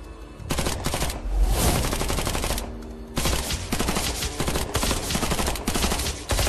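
Long bursts of rapid automatic gunfire: one starts about half a second in, breaks off briefly around the middle, then a second sustained burst runs on.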